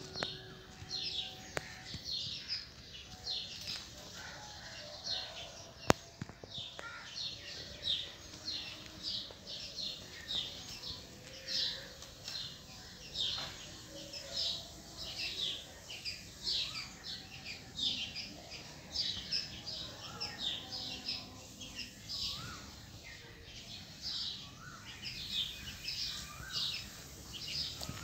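Many small birds chirping busily, short quick chirps overlapping one after another without a break, with a single sharp click about six seconds in.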